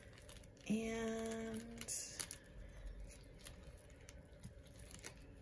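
Faint small clicks and rattles of costume jewelry beads and metal pieces being handled as a tangled clump is picked apart, with a woman's short drawn-out "and" about a second in.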